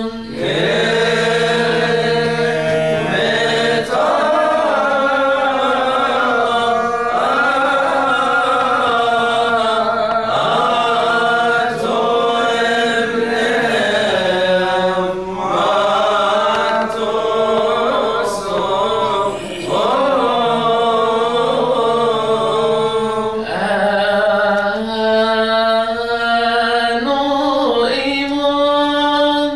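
Coptic Orthodox liturgical hymn chanted by male voices: long, wavering melismatic phrases that rise and fall, with short breaks between them.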